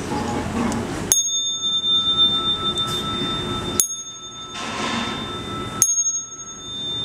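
Inkin, a small Buddhist bowl bell on a brocade-wrapped handle, struck three times, about a second, four seconds and six seconds in. Each strike gives a sharp attack and a high, steady ring that carries on between the strikes.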